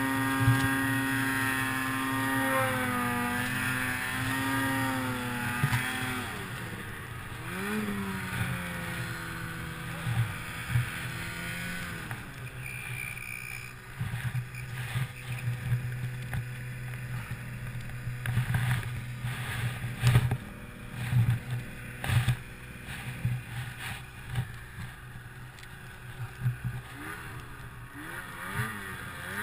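Ski-Doo Summit 800 two-stroke snowmobile engine running at high revs while ploughing through deep powder, its pitch dropping about six seconds in with a few throttle swoops. After that it runs lower with scattered thumps as the sled bounces, and revs rise again near the end.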